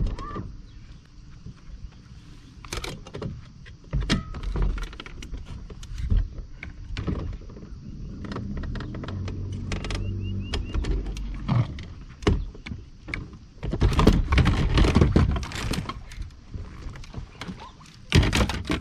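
Knocks and clicks of a man moving with fishing gear on the deck of a bass boat, then partway through a loud scramble and splash as he slips off the bow into the lake.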